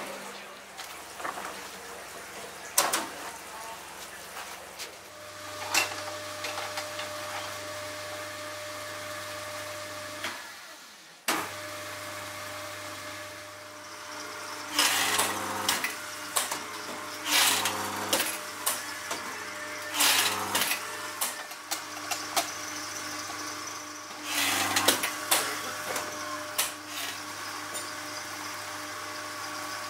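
Factory machinery humming steadily around a rubber moulding press for tennis-ball half-shells, with scattered sharp clicks and metallic clatter as the metal moulds and moulded rubber shells are handled and trimmed.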